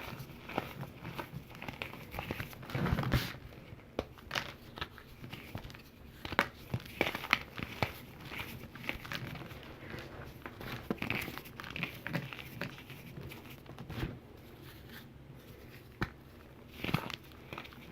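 Calcium carbonate being crumbled, giving irregular crunching and crackling, with louder crunches about three seconds in and near the end.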